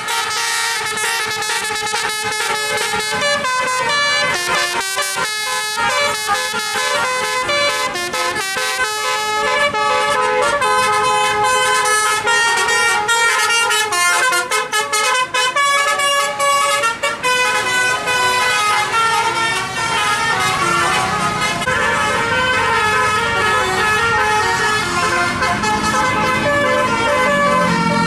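Telolet horns of Indonesian tour buses: multi-tone air horns playing quick stepped melodies, one tune running into the next.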